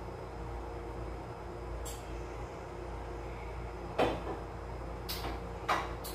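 Steady background hum, with a sharp knock about four seconds in as a cup is set down on the counter, then a few lighter clicks and clatters of a plate and eating near the end.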